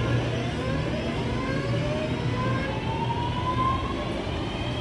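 Northern diesel multiple unit pulling slowly away, its underfloor diesel engines running with a steady low hum under a whine that rises in pitch as the train gathers speed.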